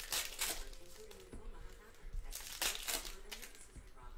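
Foil wrapper of a trading card pack crinkling and tearing as it is opened by hand, in two bursts: one about half a second in, another between two and a half and three seconds in.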